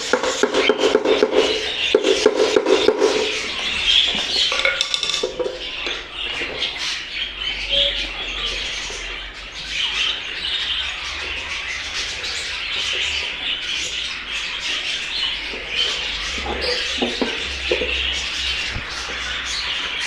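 Budgerigars chattering and chirping steadily in the background. A quick run of rattling, scraping clicks fills the first few seconds, with scattered softer clicks later.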